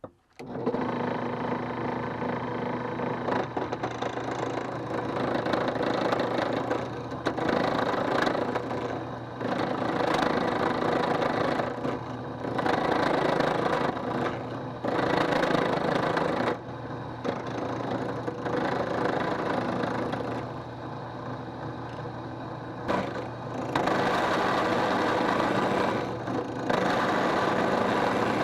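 Drill press running as a lathe: a steady motor hum, with a scraping noise that swells and fades every few seconds as the spinning wood is worked.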